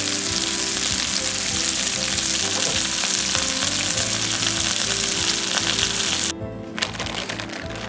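Beef meatballs and garlic frying in oil in a cast-iron skillet: a loud, steady sizzle full of fine crackles. About six seconds in it drops suddenly to a much quieter level.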